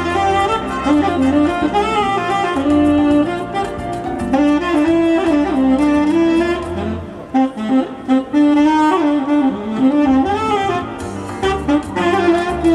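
Solo saxophone playing a slow melody in held and gliding notes, with short breaks between phrases.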